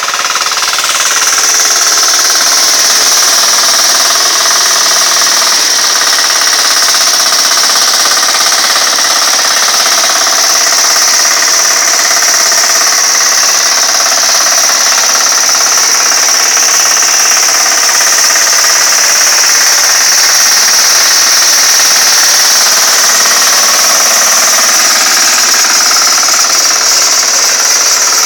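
A walk-behind hand tractor's small air-cooled single-cylinder engine running loud and steady as its rotary tiller works through weedy ground.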